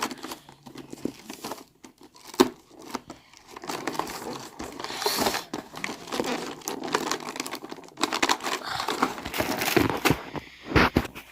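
Packaging being handled and opened: crinkling and tearing of plastic and card, broken by small sharp clicks, with one louder click about two and a half seconds in.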